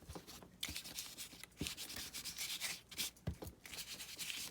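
Ink applicator scrubbed back and forth over textured paper in about five strokes, a dry rubbing sound with short pauses between strokes: the paper is being distressed with brown ink so only its raised parts catch the colour.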